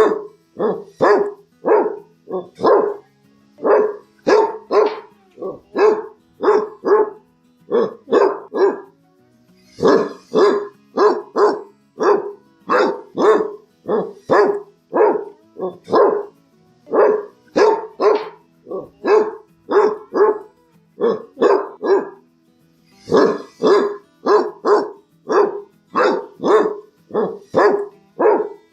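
Basset hound barking over and over, about two deep barks a second, in runs broken by short pauses.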